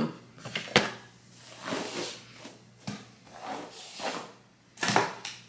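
Handling noises while long synthetic-hair wig strands are gathered and sectioned: the hair rustles and swishes, broken by sharp clicks and knocks. The strongest click is about a second in, and there is a loud knock near the end.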